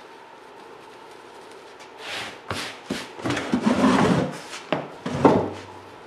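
Canvasback duck skin being shaken and handled to knock the excess borax powder out of its feathers: a run of rustling and rubbing with a few sharp knocks, starting about two seconds in and lasting about three seconds.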